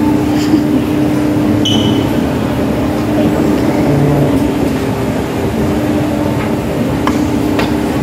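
Escalator running: a steady mechanical rumble with a low, even hum, and a few faint clicks near the end.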